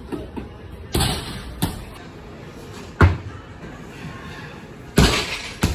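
Loaded Olympic barbell with rubber bumper plates dropped onto a lifting platform after snatches: about five heavy thuds, the loudest about three seconds in.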